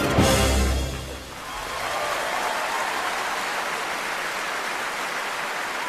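An orchestra's final short chord rings out in a large hall and dies away within about a second. Audience applause then fills in and carries on steadily.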